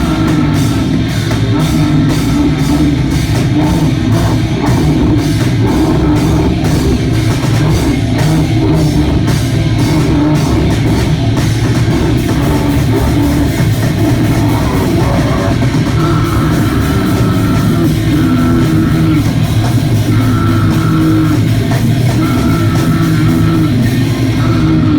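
Live hardcore punk band playing loud: distorted guitar, bass and drum kit, with steady cymbal strikes through roughly the first half.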